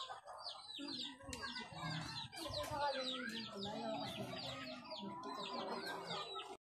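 Chickens clucking, with quick high peeps repeating over and over and low voices underneath. The sound cuts off suddenly near the end.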